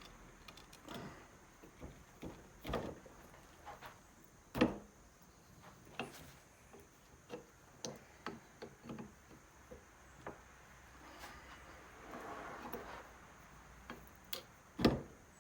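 Hand tools clicking and knocking on the metal of an air compressor pump during a teardown, with a wrench working at a stubborn bolt. Irregular light clicks throughout, with two louder knocks, one about four and a half seconds in and one near the end.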